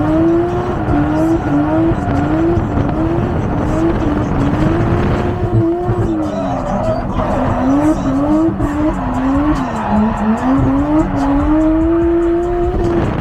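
Toyota 1JZ straight-six in a Lexus IS300 being driven hard on track. The revs rise and fall again and again in quick swings, then hold higher for a longer pull near the end, with tyre squeal under it.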